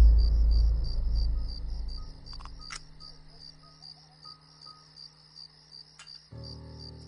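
Crickets chirping steadily, about four chirps a second, over a deep rumble that fades away during the first two seconds. A few sharp clicks come in the middle, and a low steady drone sets in near the end.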